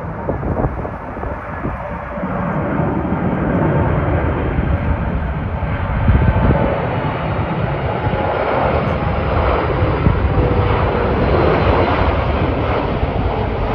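Four-engined Boeing 747 jetliner on final approach with gear down, its jet engines rumbling. The sound grows louder over the first few seconds as it nears and then holds, with a faint high whine over the rumble.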